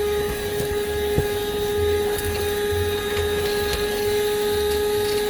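Buture handheld car vacuum running with a steady high motor whine over an uneven low rumble, with a single sharp click about a second in.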